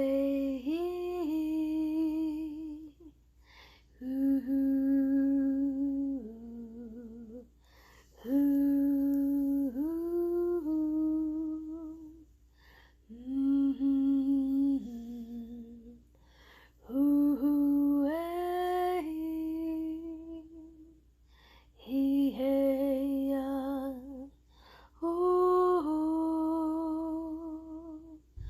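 A woman humming a slow wordless chant in about seven phrases, each a few seconds long, holding notes that step up and down, with short pauses between them.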